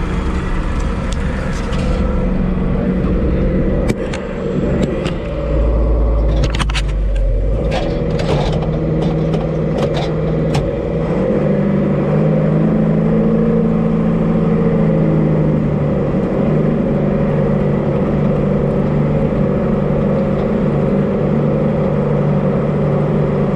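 Farm tractor's diesel engine running, its speed dropping about four seconds in and rising again around twelve seconds, with a few sharp clanks in between.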